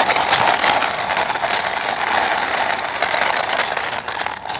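Plastic toy car running with one wheel missing, its small gear mechanism giving a continuous fast ratcheting whirr that eases off near the end.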